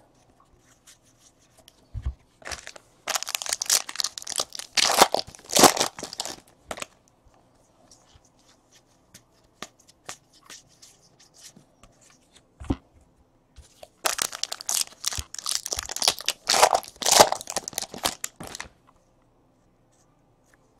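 Paper-and-foil crinkling and tearing of baseball card packs and cards being handled. It comes in two spells, about three seconds in and again about fourteen seconds in, with light clicks of cards being flipped between them.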